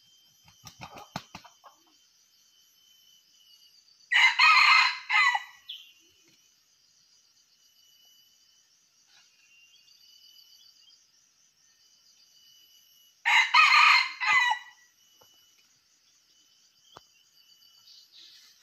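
Red junglefowl rooster flaps its wings in a quick flutter about a second in, then crows twice, about nine seconds apart, each crow short and lasting about a second and a half. Insects keep up a steady high drone underneath.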